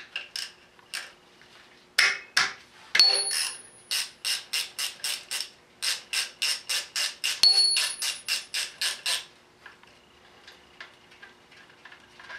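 Hand ratchet wrench clicking in quick, even strokes, about five clicks a second, after a couple of sharp metal knocks; the clicking stops about three-quarters of the way through, leaving faint light ticks.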